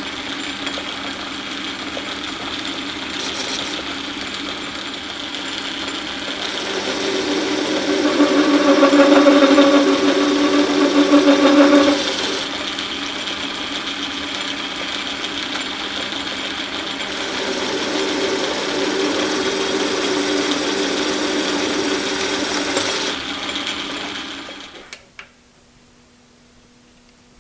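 Metal lathe running with a boring bar cutting inside a spinning workpiece, boring it out to a larger diameter. The cut adds a ringing tone, loudest about eight to twelve seconds in. The lathe stops near the end with a click.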